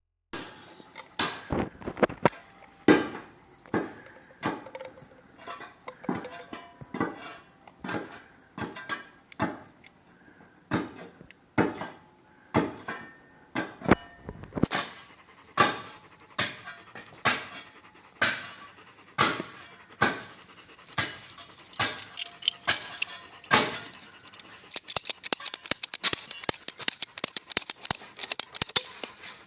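Irregular clicks and knocks of hard objects being handled, about one or two a second, turning into fast, dense ticking in the last few seconds.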